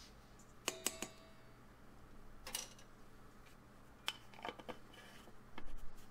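Light clinks and taps of a sliding measuring spoon against a glass spice jar and a stainless mixing bowl while cinnamon is spooned into flour. A quick cluster of three sharp, briefly ringing clinks about a second in, then scattered softer taps and a short rustle near the end.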